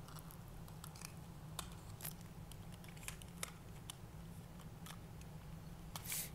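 Faint, irregular clicks and taps of the Legacy Collection Megazord's toy parts being handled and pushed into place, with a short scraping rustle near the end.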